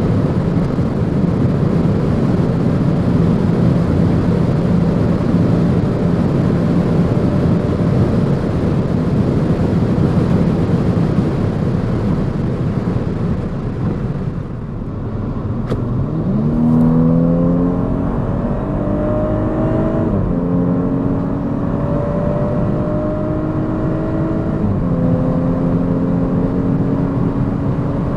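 Audi S5 Sportback's V6 engine and the rush of wind and tyre noise at high autobahn speed. It runs steadily for the first half, eases off briefly, then the engine pulls hard with its pitch climbing, dropping at upshifts about 20 and 25 seconds in, as the car accelerates again.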